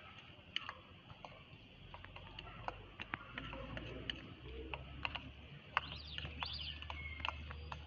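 Faint, scattered light ticks and taps of a spoon and ceramic bowl as ground roasted-wheat sattu is tipped and knocked out into a glass jug. A few quick bird chirps come about six seconds in.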